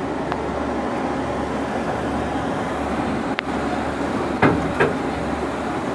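Cabin noise of an armoured vehicle on the move: steady engine and road rumble, with a sharp click a little past three seconds in and two louder knocks shortly after.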